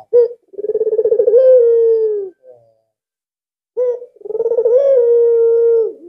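Albino ringneck dove (puter) cooing: two long, rolling coos, each opened by a short note and lifting briefly in pitch partway through, with a silent pause of about a second between them.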